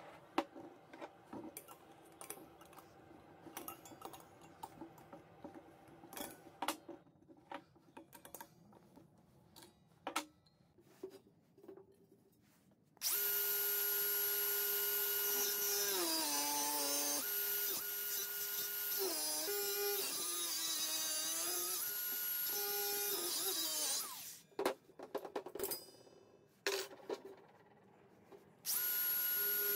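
Cordless angle grinder running against a steel gas cylinder for about ten seconds, its whine dipping in pitch several times as the disc bites under load, then starting again near the end. Before it, scattered light knocks and clicks of handling the cylinder.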